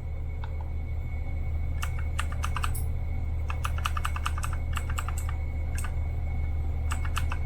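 Magic-Refiner MK11 mechanical keyboard with clicky blue switches being pressed in quick bursts of keystrokes, starting about two seconds in. A steady low hum runs underneath.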